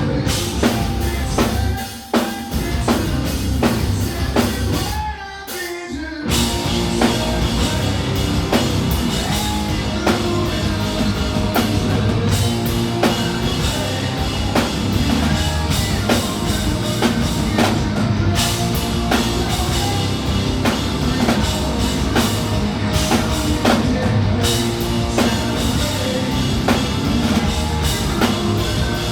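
Live hard rock band playing loudly: drum kit, guitars and a singing voice. The band thins out for a short break about five seconds in, then the full band comes back in.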